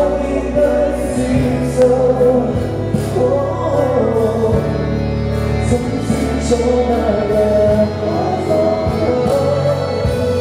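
Male pop singer singing a song live into a handheld microphone over musical accompaniment with sustained bass notes and a light beat.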